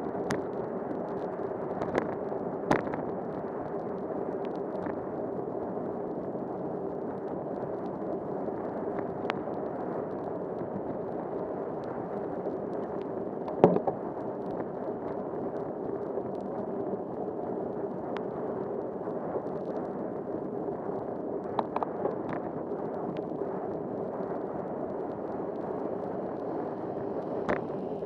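Muffled, steady rush of a bicycle riding a rain-soaked street, heard through a rain-spattered camera housing, with a steady hum mixed in. Scattered sharp taps and knocks break through, the loudest about 14 seconds in.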